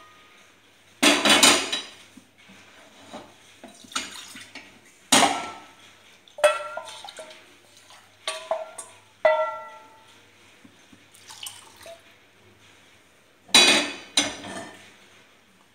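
Stainless-steel cookware clanking: about ten separate knocks and clinks, several ringing briefly, as cooked red lentils are scraped out of a steel pot into a steel bowl with a wooden spatula and the metal vessels are handled and set down.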